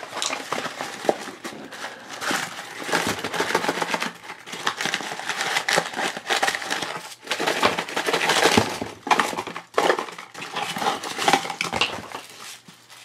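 Cardboard toy packaging and tissue paper rustling and crinkling as a blind-box package is opened and unwrapped by hand, with no let-up.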